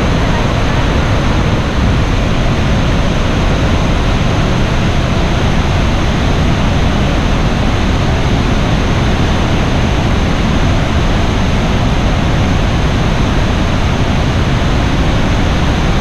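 Iguazu Falls' large waterfall, a loud, steady rush of falling water that does not let up.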